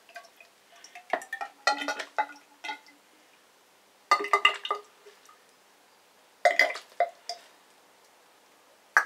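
10W fork oil glugging out of a plastic bottle into a motorcycle fork tube, in about four short bursts with quiet pauses between them, with light clinks of the bottle against the tube.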